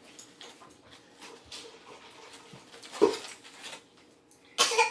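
A toddler's voice in the background: a short sharp cry about three seconds in, then a louder squeal near the end.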